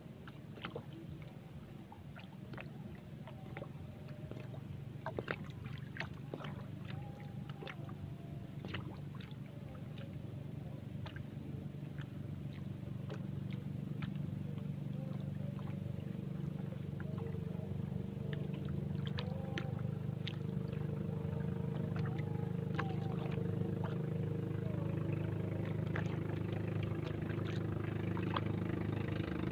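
A boat engine's low drone growing steadily louder, with scattered small clicks and taps from handling a fishing line.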